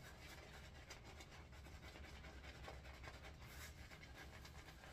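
Faint, scratchy swishing of a Sawdust Creations shaving brush working soap lather onto the stubble of the neck, a run of many short strokes.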